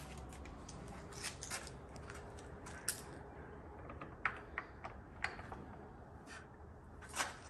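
Faint handling noises: a scatter of small clicks and crinkles as hands work something at the back of a moving truck, over a low steady rumble.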